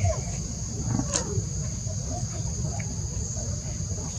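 Insects shrilling steadily on two constant high pitches, with one sharp click about a second in and a low rumble underneath.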